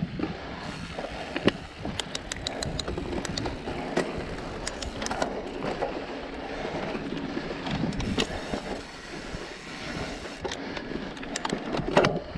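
Mountain bike rolling along a dirt singletrack: steady tyre noise on the dirt with clattering rattles and clicks over bumps. The clicks bunch together about two seconds in and again near the end, and there are sharp knocks about a second and a half in and near the end.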